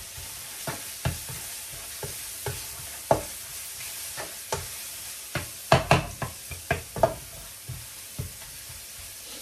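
Ground spice paste sizzling in hot oil in a non-stick wok, stir-fried until fragrant, with a spatula scraping and knocking against the pan in short strokes about every half second. A flurry of quicker, louder strokes comes a little past halfway.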